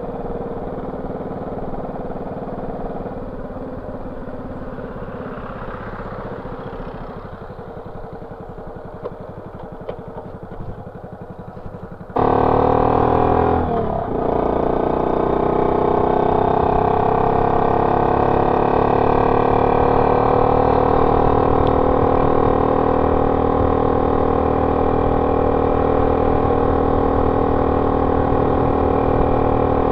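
Honda C70's single-cylinder four-stroke engine running through a banana-style aftermarket exhaust, heard from the rider's seat. At first it runs fairly quietly at low speed. About twelve seconds in it turns abruptly much louder, the pitch dips and recovers briefly as at a gear change, and it then settles into a steady cruise.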